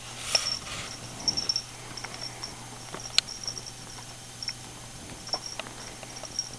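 Two kittens play-fighting on a bedspread: irregular soft rustles, scuffs and light knocks of paws and bodies on fabric, busiest in the first second and a half, over a steady low hum.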